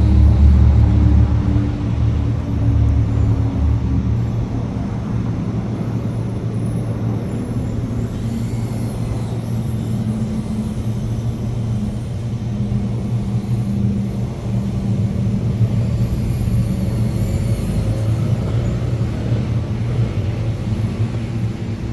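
Steady low hum under a faint high-pitched whine that rises and falls, the motors of a small FPV quadcopter changing speed with the throttle.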